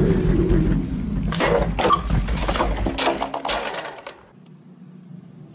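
Rapid rattling and clattering over a heavy low rumble of wind on the microphone, from a camera riding on a moving bicycle; it drops suddenly to a quieter steady hum about four seconds in.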